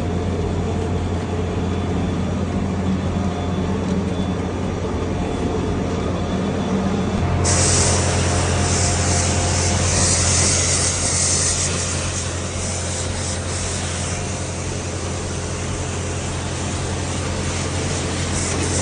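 Air-conditioning unit running with a steady low electrical hum. About seven seconds in, a pump motor starts and a loud hissing water spray begins and continues, typical of a jet pump washing an unserviced AC unit.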